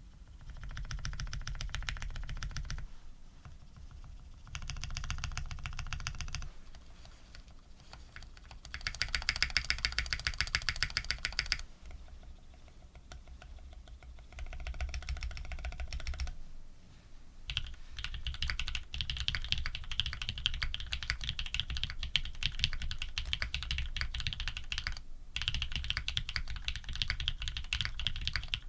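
Typing on a Think 6.5 v2 custom mechanical keyboard with lubed Cherry black-housing, cream-stem switches, PBT keycaps and an FR4 plate: fast runs of key clicks. The clicking comes in several separate bursts with pauses between them, then runs almost without a break from about two-thirds of the way in.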